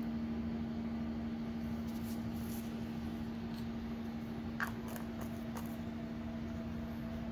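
A steady low hum runs throughout, with a single light click about four and a half seconds in as small parts are handled.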